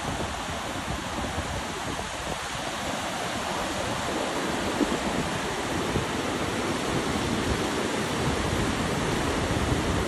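Surf breaking and washing up the beach, a steady rushing noise that grows slightly louder toward the end.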